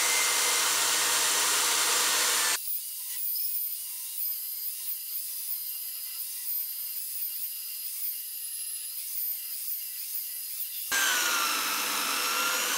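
Vevor portable bandsaw running and cutting through 75 x 25 hot-rolled mild steel flat bar, a steady motor whine with the blade rasping. About two and a half seconds in, the cut is sped up ten times and the sound turns thin and high with light chatter, returning to normal speed near the end.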